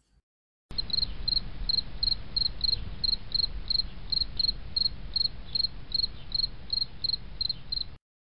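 Cricket chirping steadily, about three short high chirps a second, over a low background rumble. It starts abruptly shortly after the beginning and cuts off suddenly near the end.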